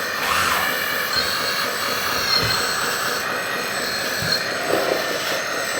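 Metal 1/14 RC hydraulic bulldozer running on its tracks: a steady mechanical whine from its electric hydraulic pump and track drive motors.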